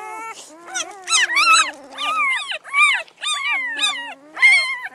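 Newborn Great Pyredane puppies (Great Dane × Great Pyrenees crosses) crying: a string of high, arching squeals and whines, about two a second and often overlapping.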